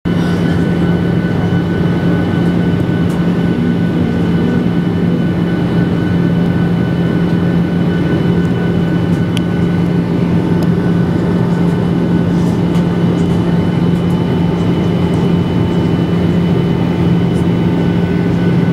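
Steady cabin noise of a Ryanair Boeing 737 jet airliner in flight: engine drone and airflow rush with a strong low hum and a few faint higher tones held evenly. A few faint ticks sound over it.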